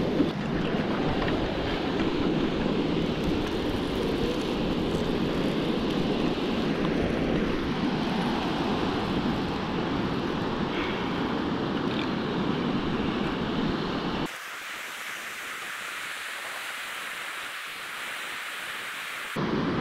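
Strong wind buffeting the microphone over the wash of breaking surf. About two-thirds of the way in the rumble cuts out abruptly, leaving only a thin, steady hiss of surf for several seconds before the windy rumble returns.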